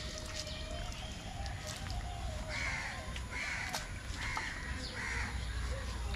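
A crow cawing four times in a row, less than a second apart.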